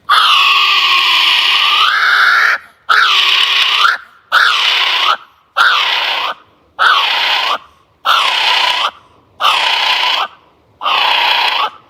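Kiwi calling: a series of loud, shrill whistled notes. The first is long, about two and a half seconds, and about seven shorter notes of about a second each follow at an even pace, each rising in pitch at its end.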